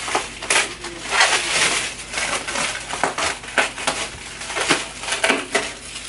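Thick layers of plastic cling wrap crinkling and tearing as they are pulled and ripped off, an irregular run of sharp crackles.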